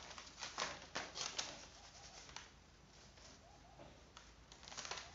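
Brown paper pattern pieces rustling as they are slid and spread apart across a sheet of paper, with several short crackles.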